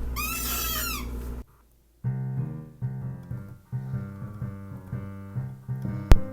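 A low hum with a rapid, squeaky warble that cuts off after about a second and a half. After a short silence, keyboard or piano-like music starts and plays on, with a single sharp click near the end.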